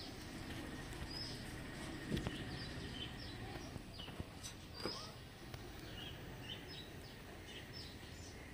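Outdoor ambience with short, high bird chirps scattered throughout, and a couple of soft knocks about two seconds in and near the middle.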